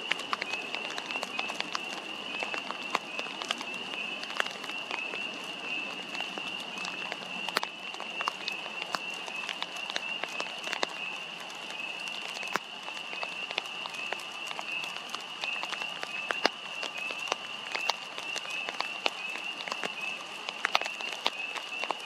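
A continuous high-pitched pulsing animal chorus, with many scattered sharp clicks throughout.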